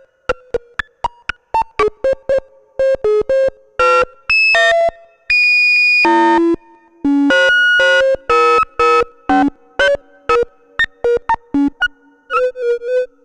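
Two oscillators in a Eurorack modular synth play a little evolving two-voice note sequence, each note shaped by an attack-release envelope from a Mannequins Just Friends through a VCA, with pitches from a Rene sequencer harmonised by a quantizer. The notes start as short, quick plucks, grow longer and more sustained in the middle, then turn short and rapid again near the end.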